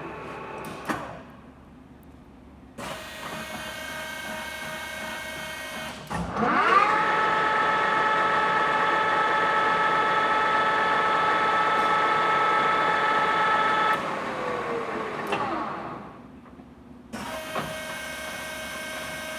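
Leblond Makino Regal 15 servo-shift lathe headstock running under power: it stops about a second in, restarts, then about six seconds in spins up with a rising whine to a louder, higher speed and runs steadily. Around fourteen seconds it winds down with a falling whine, goes quiet briefly, and starts running again near the end.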